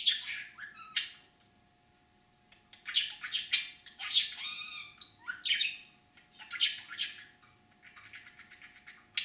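Budgerigar chattering: two sharp calls, a short pause, then a run of warbling chatter with quick pitch bends and a fast series of clicks near the end. This is the chatter of a talking budgie, which mimics whistles and words.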